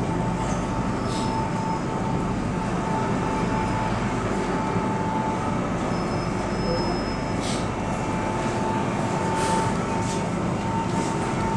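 MTR Island Line M-train running slowly through the station platform without stopping, heard through the platform screen doors: a steady rumble with a high whine, and a few short hisses or squeals.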